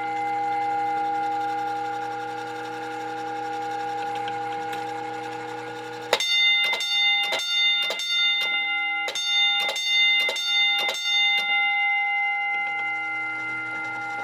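Fire alarm signal from an early-1950s IBM 4206-2 fire alarm control panel. A steady ringing tone sounds, then about six seconds in come sharp bell strokes at about two a second, broken by a short pause, tapping out the panel's coded master signal 4-4.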